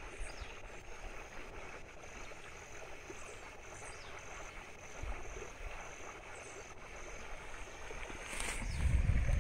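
Rain-swollen river running full, a steady rush of flowing floodwater. Near the end, a gust of wind hits the microphone with a low rumble.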